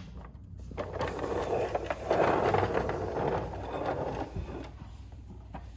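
Calico Critters plastic toy school bus pushed along a wooden floor: the noise of its plastic wheels rolling, loudest for about two seconds in the middle.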